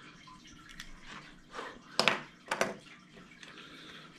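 Hands handling a length of elastic cord and small hardware: a few sharp clicks and rustles, loudest about two seconds in, with a second cluster about half a second later.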